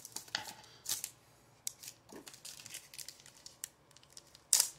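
Foil trading-card pack wrapper torn open and crinkled as the cards are pulled out: scattered short crinkles and clicks, with one louder brief crackle near the end.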